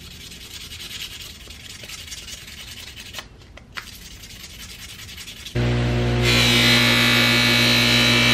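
Sandpaper rubbing by hand on a small metal sewing-machine part, a quiet scratchy scraping. About five and a half seconds in, a bench buffer's motor takes over abruptly, much louder, with a steady hum and whine as its buffing wheel spins.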